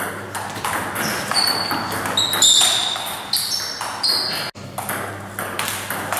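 Table tennis ball clicking off the bats and the table in quick succession during a rally, with a few short high squeaks between about one and four seconds in. The sound breaks off sharply for an instant about four and a half seconds in, then the clicking resumes.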